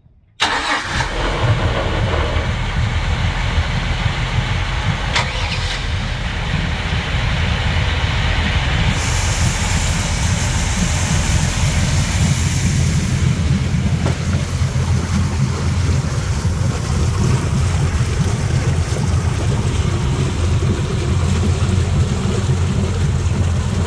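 A MerCruiser boat engine being cold-started: it fires suddenly about half a second in and settles into a steady, loud, low idle.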